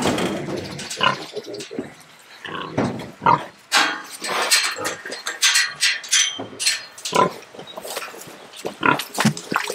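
Tamworth pigs calling in a quick run of short grunts and squeals, one after another.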